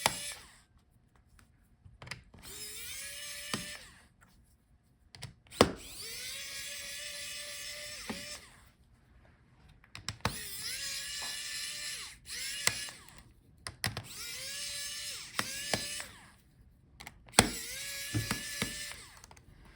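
Small electric screwdriver backing out laptop hinge screws: the motor whirs up and holds a steady whine for one to two seconds, about six times, with small clicks between the runs.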